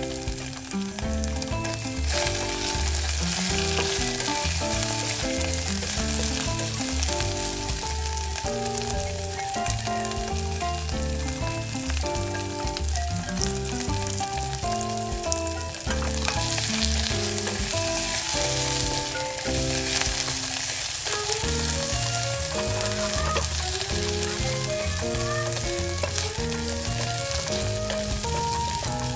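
Dried salted fish (tuyo) sizzling as it fries in hot oil in a saucepan. The sizzle grows louder about two seconds in, and near the end a wooden spatula stirs the fish. Background music plays throughout.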